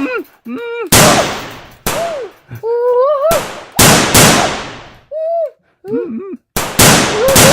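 Gunshot sound effects, several sharp shots in small groups with fading tails, traded back and forth in a pretend Nerf gun battle. Short high-pitched voice cries fall between the shots.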